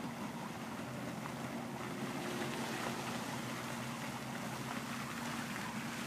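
Pond fountain spray splashing steadily, with a steady low hum under it.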